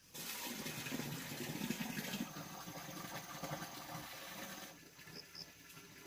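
Water running or gushing, starting suddenly and easing to a quieter flow about three-quarters of the way through.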